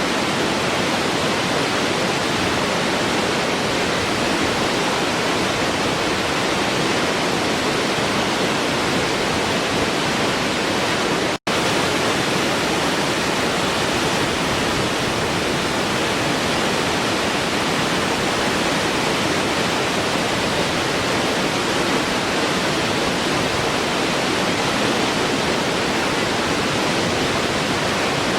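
Waterfall rushing in a steady, even roar of falling water, broken once by a split-second dropout about a third of the way in.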